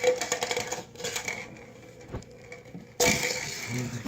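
Rapid light metallic clinking and jingling as puppies play, with a louder rattle about three seconds in.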